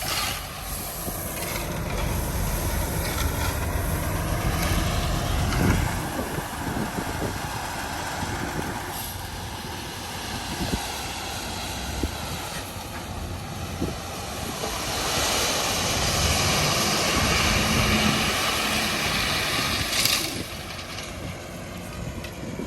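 Komatsu D41P crawler bulldozer working: engine running under load with the clatter and squeal of its steel tracks. A louder stretch of high hiss and squeal in the second half cuts off abruptly about twenty seconds in.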